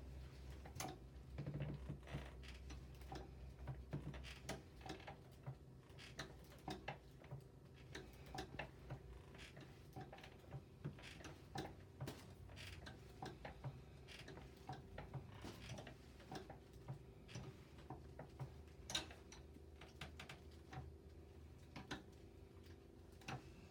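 Cox flexion-distraction table clicking faintly as it works the patient's lower back through flexion: uneven light clicks, about two a second, over a steady low hum.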